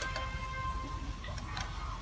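Honda CBR150R's single-cylinder engine idling with a quick, steady mechanical ticking, heard through a replica Akrapovic slip-on muffler with the dB killer fitted.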